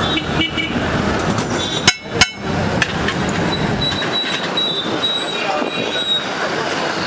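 Roadside cooking on a flat iron griddle: a steady din of traffic noise and frying, with two sharp metal clacks of a steel spatula on the griddle about two seconds in.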